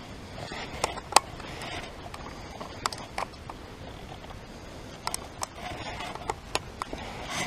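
A game camera's plastic case handled while its SD card is changed: a series of sharp clicks and taps, the loudest about a second in and a quick cluster in the second half, with soft handling rustle between them.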